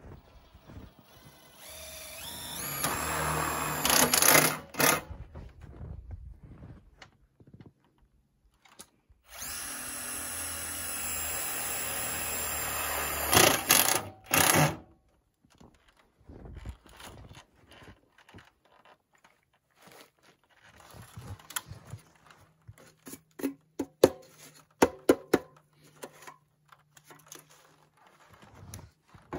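Cordless power drill run twice for a few seconds each, about two and ten seconds in, the first spinning up and both ending in a louder burst, as it drives screws into the joints of a sheet-metal wood-stove pipe. Later comes a string of light clicks and taps from the pipe and its cap being handled.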